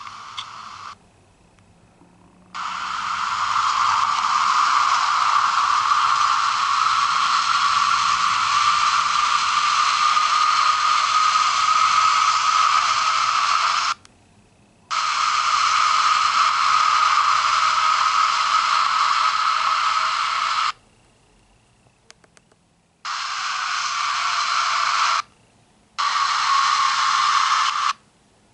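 Harsh, even hiss like radio static in long stretches that cut in and out abruptly: one starting about two and a half seconds in, one starting about 15 seconds in, and a shorter one near the end, with near-silent gaps between them.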